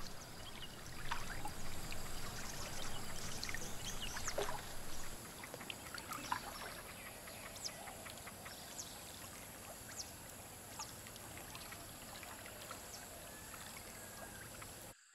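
Water sloshing and splashing as a wading animal moves through shallow floodwater, louder for the first five seconds, with scattered short bird chirps and a faint steady high insect hiss.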